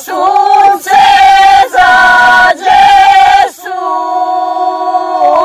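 A group of women singing a traditional Serbian regional folk song together, unaccompanied. They sing short held phrases about a second each, then hold one long chord over the last two seconds.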